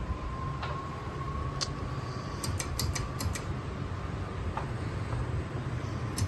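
Several ceiling fans running on high, a steady rush of air with a faint whine for the first few seconds. A quick run of light clicks comes about two and a half seconds in.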